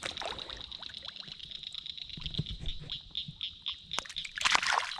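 Water splashing and trickling as a caught largemouth bass is handled and let go back into the lake, with one louder splash near the end. A steady pulsing high chirring runs underneath.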